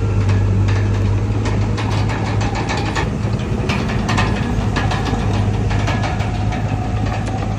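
Bulldozer's diesel engine running steadily with a deep hum, broken by frequent short clanks and rattles.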